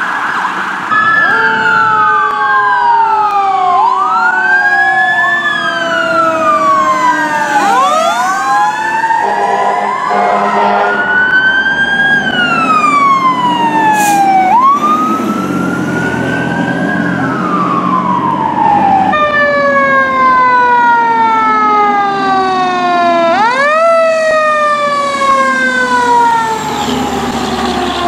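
Fire truck sirens wailing, several overlapping, each rising quickly and falling slowly. The siren sound changes abruptly twice.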